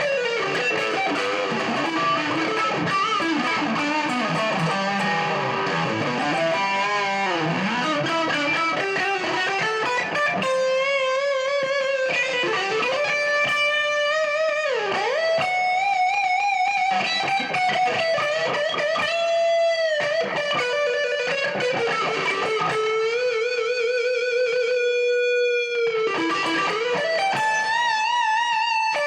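Career Les Paul-style electric guitar played with distortion: fast lead runs at first, then, about ten seconds in, long sustained notes with bends and wide vibrato.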